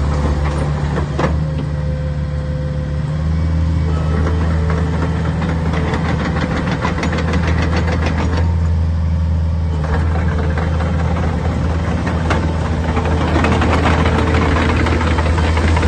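Hitachi ZX60C-6A mini excavator's Yanmar diesel engine running steadily.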